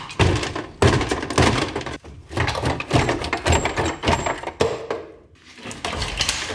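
Irregular series of knocks, clanks and thunks from tools and parts during a vehicle teardown. A hissing noise rises near the end.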